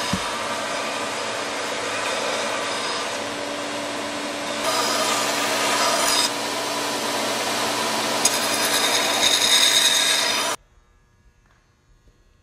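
Belt sander running with a steel knife blade ground against the belt: a continuous rasping grind over the motor's steady hum, growing louder twice. It cuts off suddenly near the end, leaving only faint room tone.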